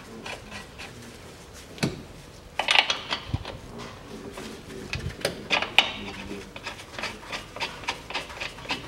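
Metal clinks and knocks of a front suspension ball joint and its fastener being fitted to the steering knuckle by hand, with the loudest knocks about 2, 3 and 6 seconds in. Then comes a run of light, evenly spaced clicks.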